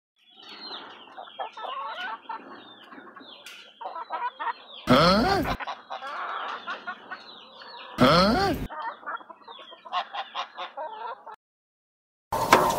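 A flock of chickens clucking, with many short high calls and two louder calls that rise and fall in pitch, about 5 and 8 seconds in. After a brief pause, a different sound cuts in just before the end.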